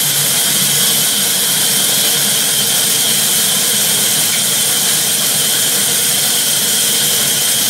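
Sawmill band saw running, its vertical blade ripping lengthwise through a timber plank: a loud, steady, mostly high-pitched hiss that does not let up.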